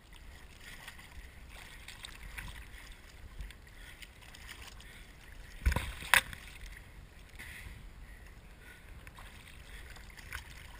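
Choppy water sloshing and lapping close to the microphone around a kiteboarder floating in deep water, with two sharp hits about half a second apart around the middle.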